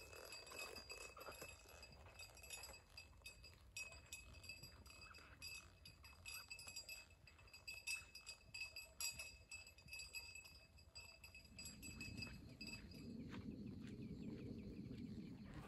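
Faint cowbells on grazing cows: many small clinks over steady ringing bell tones. A low sound swells in near the end.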